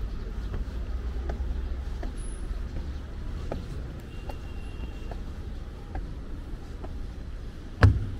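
City street ambience: a steady low rumble of traffic with faint, fairly regular clicks, likely footsteps. One sharp, loud knock sounds near the end.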